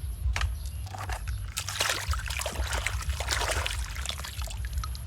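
Water splashing and trickling over a small toy dump truck as it is washed, busiest in the middle, over a steady low hum.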